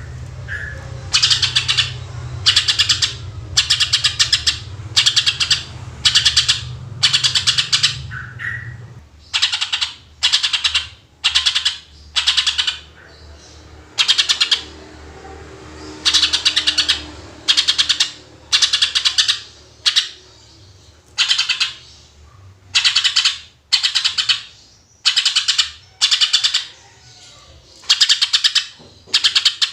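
Green leafbird (cucak ijo) singing in its 'tembakan' style: loud, short bursts of very rapid, harsh high notes, repeated about every second or so. A low traffic-like rumble runs underneath for the first nine seconds or so, then stops.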